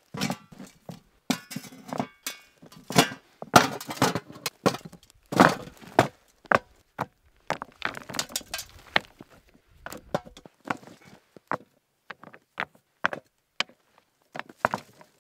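Rocks being stacked by hand over a buried cooking pot, knocking and clacking against one another, with gravel scraping as small stones are packed around the pile. The knocks are irregular and dense at first, thinning to sparser, sharper clicks in the second half.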